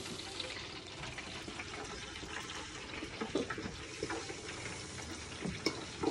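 Steady hissing sizzle of chicken frying in hot oil in a covered pan, with a few small clicks and pops scattered through.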